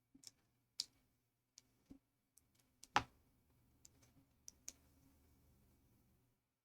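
Plastic building-block pieces clicking as they are handled and pressed together: a dozen or so faint, irregular clicks, the sharpest about three seconds in.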